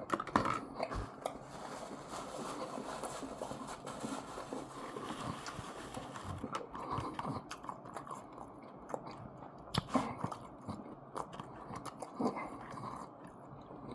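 A person chewing and biting food close to the microphone, with wet mouth sounds and scattered sharp clicks, the loudest about ten and twelve seconds in.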